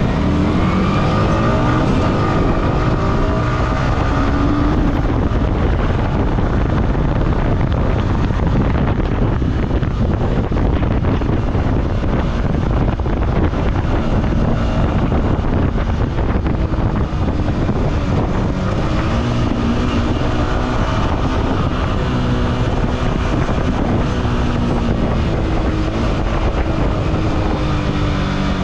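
Yamaha R15M's 155 cc single-cylinder engine on its stock exhaust while riding, its pitch rising and falling with throttle and gear changes early on and again near the end. Wind noise on the microphone runs under it.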